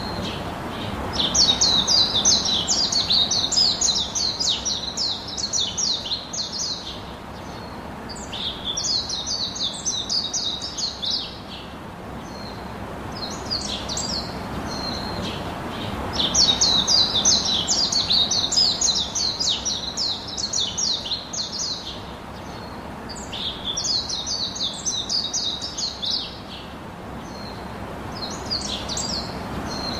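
Birds chirping in quick runs of high notes, in bouts of a few seconds that come back about every seven seconds.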